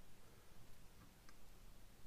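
Near silence: room tone with a couple of faint clicks from hands working a pink silicone rubber mold off a cast resin dome.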